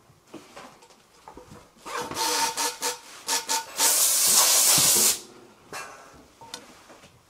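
Compressed air hissing at a pneumatic spot-welding station: several short, broken hisses from about two seconds in, then one loud steady blast of a little over a second that stops abruptly.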